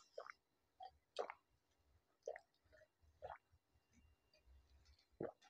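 Faint, scattered mouth sounds of eating and drinking: about half a dozen soft clicks and swallows as pani puri is chewed and juice is gulped from a glass, with a slightly louder one near the end.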